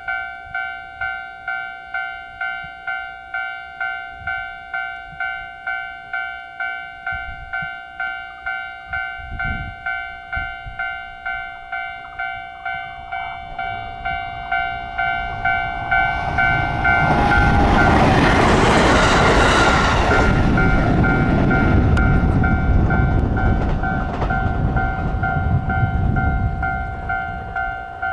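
Japanese level crossing warning bell ringing its electronic clang at a steady beat, about one and a half strokes a second. About halfway through a train comes up and passes over the crossing, its rumble and wheel noise loudest a few seconds later and then fading, while the bell keeps ringing.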